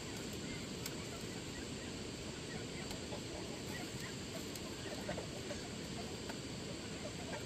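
Chickens clucking faintly, with a few soft scattered calls, over a steady low background noise and a few light knocks.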